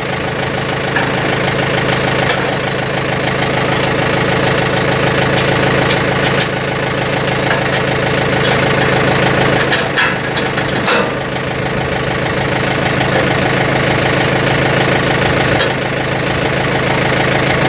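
Tractor engine idling steadily, with a few sharp clicks around the middle.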